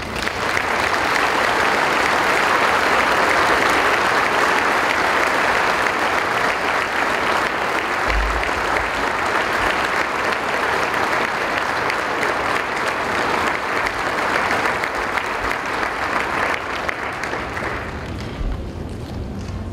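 Large audience applauding, a long sustained ovation that starts at once and dies down near the end.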